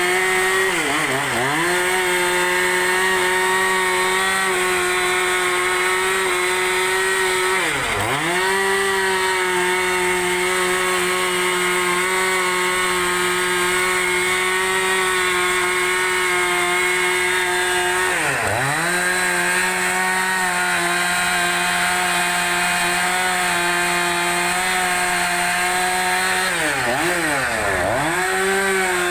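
Two-stroke chainsaw running flat out while ripping a large log lengthwise. Its steady high engine note dips sharply in pitch and recovers a few times: about a second in, about a quarter of the way through, past halfway, and three times in quick succession near the end.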